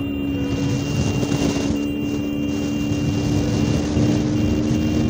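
KTM Duke motorcycle engine running at a steady cruising speed, its note holding level, with wind and road noise rushing over the microphone.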